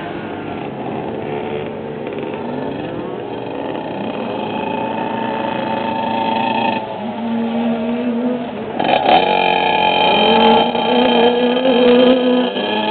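Several small motocross dirt bikes running on a track, their engine notes rising and falling as they rev and back off, overlapping one another. A louder bike comes close about nine seconds in.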